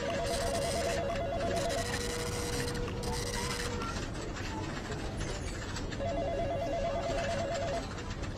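Electronic office telephone ringing with a fast warbling trill, two rings about four seconds apart, over a steady background of office noise.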